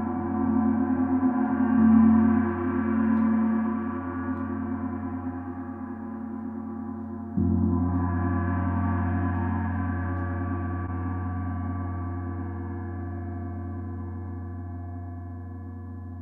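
Oetken Sedna 28-inch planetary gong, tuned to 181.6 Hz (F sharp), played with a soft felt mallet: a deep, many-toned ringing that swells under gentle strokes. A fresh stroke comes about seven seconds in, after which the gong rings out and slowly fades.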